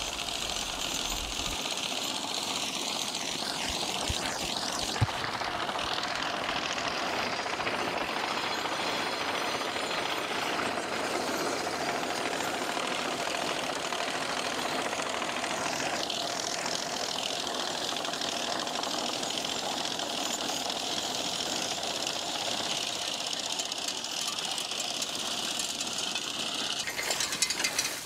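Horse-drawn sickle-bar mowing machine running steadily, its cutter bar clattering as it cuts through thick, overgrown hay.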